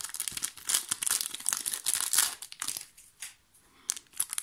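Foil wrapper of a Pokémon trading-card booster pack crinkling as it is pulled open and handled: a quick run of short rustles, with a brief lull about three seconds in.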